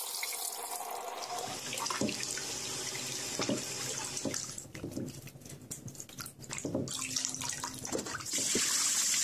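Kitchen tap running into a stainless-steel pot as a hand swishes soaked sea cucumbers around to rinse out fine sand, with splashing and small knocks against the pot. At the start water pours off the tipped pot into the sink. The water sound eases around the middle and is strongest near the end.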